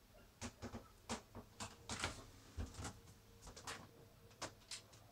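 Irregular light knocks and clicks, about a dozen in a few seconds, from someone moving about inside a boat's cabin.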